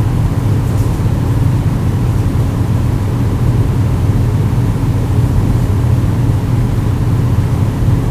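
A steady, unchanging low mechanical hum.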